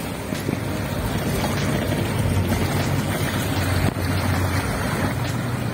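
Wind rushing over the microphone across open river water, with a low steady hum underneath.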